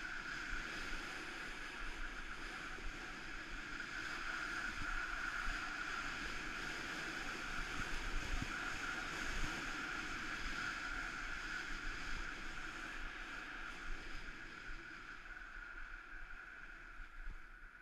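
Skis or board edges sliding and scraping over packed, groomed snow, with wind rushing over the camera microphone during a downhill run. It is a steady hiss that eases off near the end as the descent slows.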